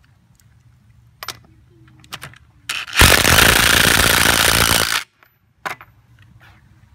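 DeWalt DCF886 20-volt brushless impact driver hammering a lug nut down tight, a loud rapid rattle for about two seconds that cuts off suddenly. A few light clicks and knocks come before it and one click after.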